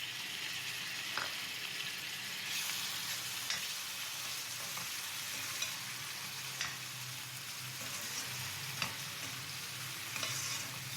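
Chopped tomato, onion and green chillies frying in hot ghee: a steady sizzle that grows louder a couple of seconds in, with light clicks now and then.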